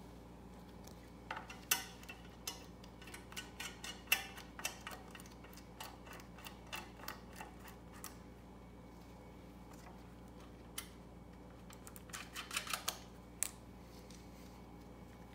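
Light plastic clicks and taps as a snowblower engine's plastic carburetor cover is handled and fitted back into place, in two scattered flurries with a lone click between, over a faint steady hum.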